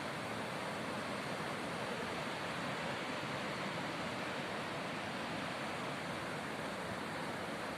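Sea surf breaking and washing on the shore, a steady even rush of water with no distinct swells.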